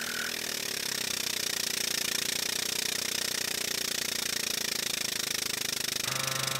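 Air-over-hydraulic pump of a 20-ton shop press running with a rapid, even pulsing as the ram presses a spherical bushing into an aluminium rear upright. A steady hum joins in about six seconds in.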